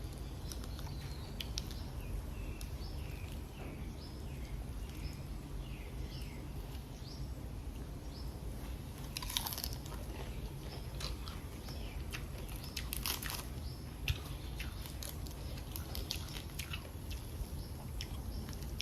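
A person chewing and crunching raw vegetables, lettuce and spring onion, close to the microphone, with a series of short crunches and two louder bites about nine and thirteen seconds in.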